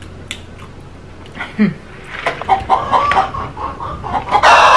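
Chicken clucking, dubbed in as a sound effect: a run of short, quick clucks starting about two seconds in. Near the end comes a loud, harsh burst.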